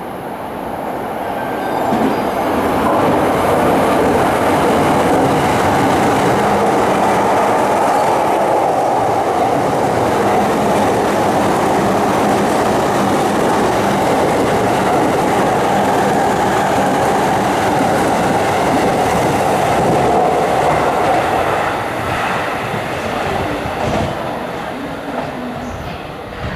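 Electric commuter train running along the platform track, a steady noise of wheels on rails. It builds over the first two seconds, holds for about twenty seconds, then fades.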